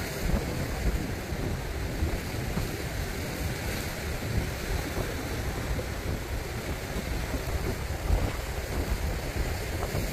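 Sea waves washing and breaking against the shore rocks, with wind buffeting the microphone in irregular gusts.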